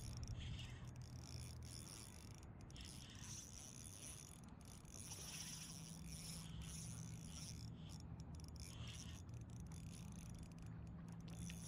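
Spinning fishing reel working against a hooked fish: a quiet, steady mechanical whirr from the reel, with a low hum that settles in about halfway through.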